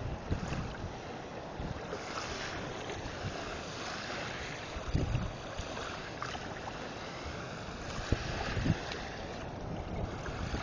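Wind rushing over the microphone, with short low rumbles as gusts hit it.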